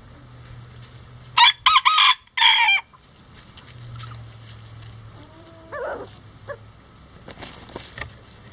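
A bantam rooster crows once, a loud, high-pitched crow in several syllables lasting about a second and a half, starting about a second and a half in. Softer chicken clucks follow in the second half.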